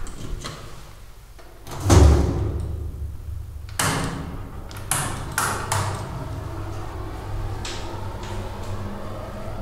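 Freight elevator door shutting with a heavy thud about two seconds in, then a few sharp clicks as a key is turned in the car's keyswitch, over a steady low hum.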